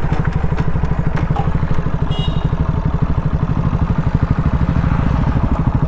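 KTM Duke 200's single-cylinder engine running at low, steady revs, an even fast pulse with no revving up or down.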